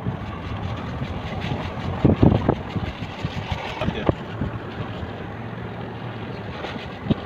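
Car engine and road noise heard from inside the moving car, steady, with a few short knocks about two seconds in.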